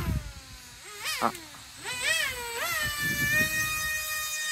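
Electric motor of a radio-controlled Su-30 model jet whining as it flies overhead, its pitch swooping up and dropping back several times with throttle changes, then holding steady near the end.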